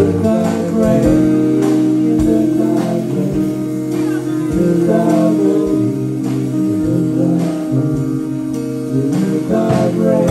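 Electric guitar and drum kit playing a slow blues song live, the drums keeping a regular beat under the guitar.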